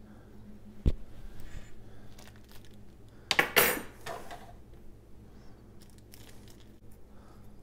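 Kitchen handling sounds as a boil-in-bag rice pouch is handled with metal tongs and snipped open with scissors over a bowl. There is a sharp click about a second in and a louder crinkling clatter about three and a half seconds in, then faint small clicks and rustles.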